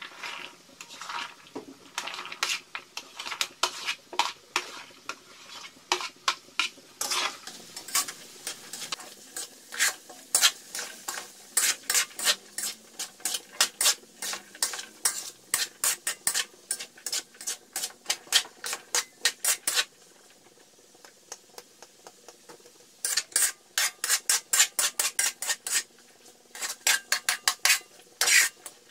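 Metal spatula scraping and clinking against an aluminium wok as diced squash is stirred and sautéed, with frying sizzle beneath. The strokes come fast and irregular, pause for about three seconds past the middle, then resume.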